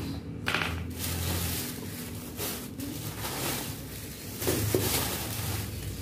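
Thin plastic shopping bags rustling and crinkling as groceries are handled and unpacked, with a louder crinkle about two-thirds of the way through.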